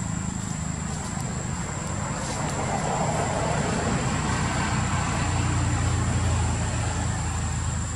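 Low, steady engine rumble of a motor vehicle, swelling a little about five to seven seconds in.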